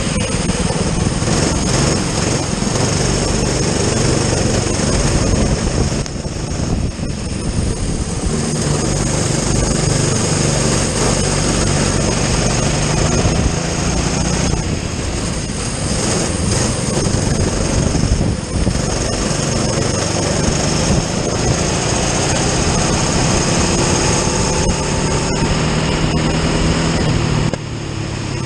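Kart engine running hard under load, with the dense rush of an onboard microphone at speed. It eases off briefly several times, as for corners, then climbs in pitch again as it accelerates.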